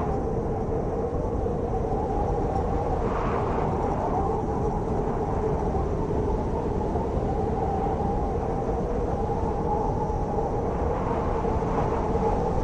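Blizzard wind blowing steadily with a deep rush and a low, wavering moan at two pitches. It swells briefly into a stronger gust about three seconds in.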